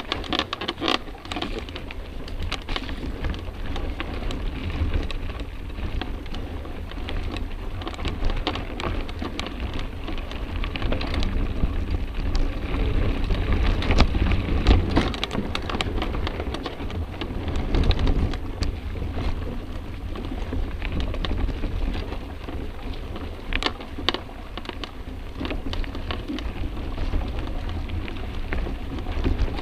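Mountain bike ridden over forest singletrack, heard from a camera mounted on the bike: a steady rattle and crunch of tyres and frame over the rough trail, with frequent knocks and a low wind rumble on the microphone.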